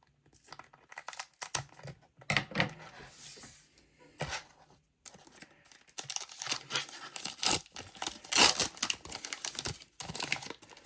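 Foil wrapper of a Pokémon trading card booster pack being torn open and crinkled, in irregular crackling rustles, busiest in the second half.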